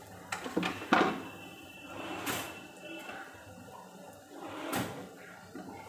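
Kitchen handling noises: a handful of short knocks and clatters, spaced a second or more apart, over a faint steady hiss.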